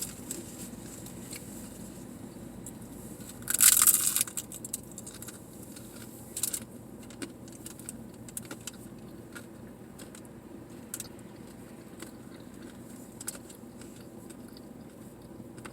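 Eating sounds: a loud crunch about three and a half seconds in, then quieter chewing and small clicks, over the steady hum of the idling car's engine and air conditioner.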